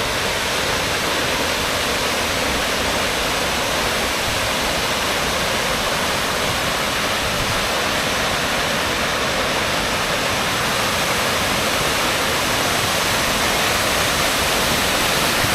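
A 75-foot waterfall crashing down close by: a steady, loud roar of falling water with no letup.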